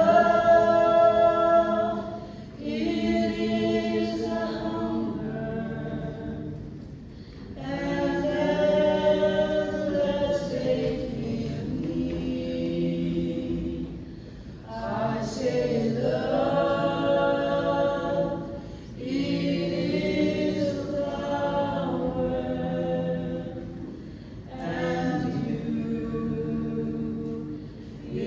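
Mixed male and female a cappella vocal group singing in close harmony through microphones, without instruments. The chords are held in long phrases with short breaks between them.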